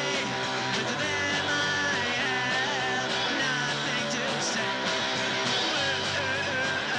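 Punk rock band playing a song from a home-recorded demo cassette: electric guitar, bass and drums.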